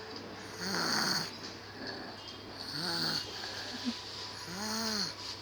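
A sleeping person snoring: three snores about two seconds apart.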